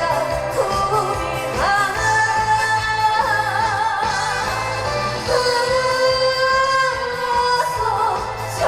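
A woman singing a Korean trot song over instrumental accompaniment, holding long notes with vibrato.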